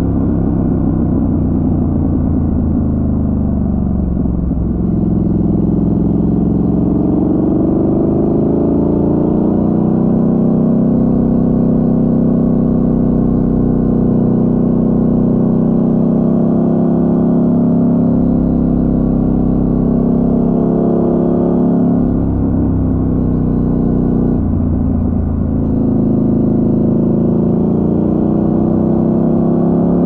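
Triumph Scrambler 1200 XC's 1200 cc parallel-twin engine under way on a winding road, its revs rising and falling through the bends. The engine note dips briefly about four seconds in and again around twenty-two and twenty-five seconds, as the throttle is rolled off and picked up again.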